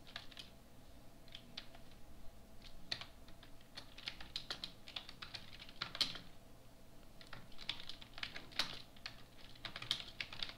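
Typing on a computer keyboard: key clicks in quick, irregular runs with short pauses between them.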